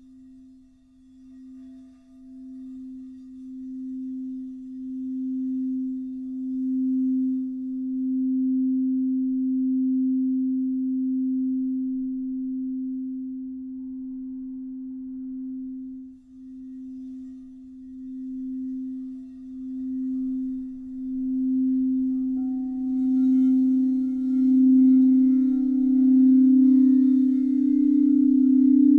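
Crystal singing bowls: one low bowl rubbed around its rim with a mallet gives a single steady tone that pulses slowly and swells gradually louder. A little past twenty seconds, a second bowl with higher tones joins in.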